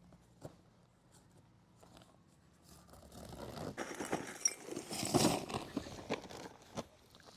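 Objects being handled: a run of scraping, rustling and clinking that starts about three seconds in and is loudest a little past halfway, after a few faint clicks.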